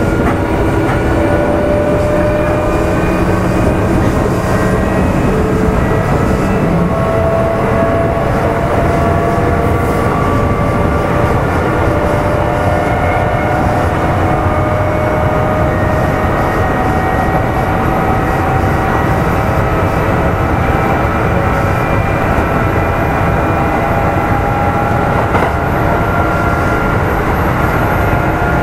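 Kintetsu 1810 series electric train running, heard from motor car Mo 1826: a steady rumble of wheels on rail under several traction motor and gear whines. The whines rise slowly in pitch as the train gathers speed.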